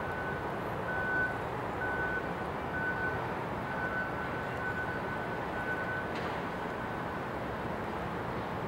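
Steady rumble and wind of a harbour as a large car ferry gets under way with its funnel smoking. A high electronic beep repeats in short pulses about once a second, stopping about seven seconds in.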